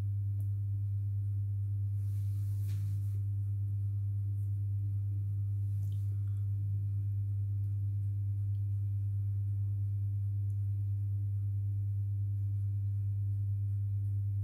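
Electric fan running with a steady low hum.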